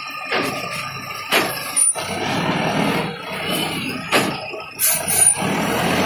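Self-loading concrete mixer running with its hydraulics working as the loading bucket is lowered, with several sudden knocks along the way.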